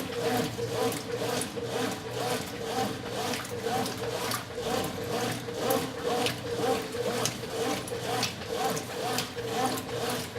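Brastemp 9 kg top-load washing machine agitating a full tub of clothes and water during the wash: the motor hums as the agitator swings back and forth in a steady rhythm, each stroke churning and swishing the water.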